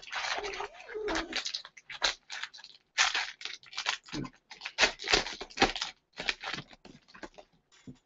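Plastic and foil wrapper of a Topps jumbo pack of football cards being torn open and crinkled by hand: irregular crackling and rustling that stops near the end.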